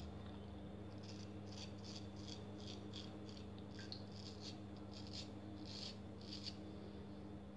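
Straight razor scraping through lathered stubble on the chin: a run of short strokes, about three a second.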